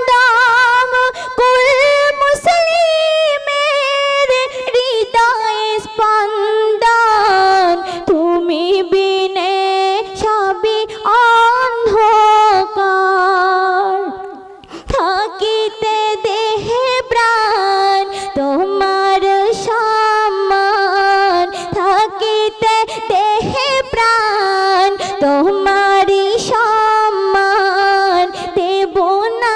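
A high solo voice singing a Bengali Islamic ghazal, with long held notes and ornamented, wavering phrases. There is a short breath pause about halfway through.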